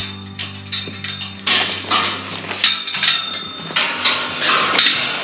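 Metal tube gate clanking and rattling in a run of sharp knocks as it is worked loose and lifted off its hinges, with background music underneath.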